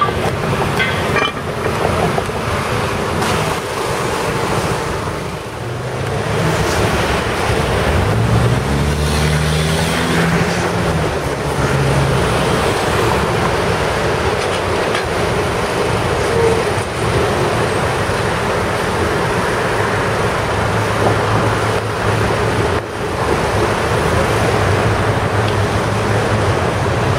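Steady hiss of high-pressure water spray from power-washing wands cleaning streetcar tracks, mixed with street traffic. A passing vehicle's engine rises and falls in pitch from about six to twelve seconds in, and a steady low engine drone comes in near the end.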